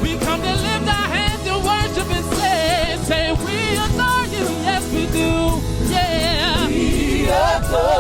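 Gospel choir and vocalists singing with vibrato and melismatic runs over a full band accompaniment, the voices weaving between held notes and quick ornamented lines.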